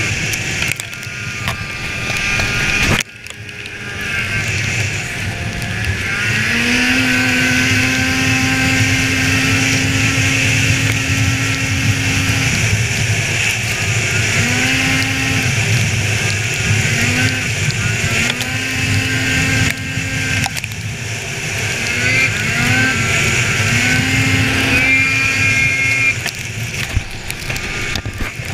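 Polaris snowmobile engine running under throttle: its pitch climbs and holds steady for several seconds, then falls and climbs again in a series of shorter throttle surges, over a steady rush of noise.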